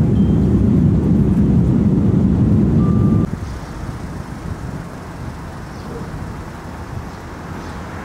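Steady low rumble of a jet airliner's cabin in flight, with a short single high tone near three seconds in. A little over three seconds in the rumble cuts off abruptly, and quieter street ambience with traffic takes over.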